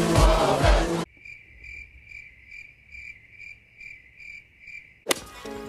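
Pop music with a heavy beat cuts off about a second in, leaving a cricket chirping steadily, about two chirps a second in a quiet pause; music starts again suddenly near the end.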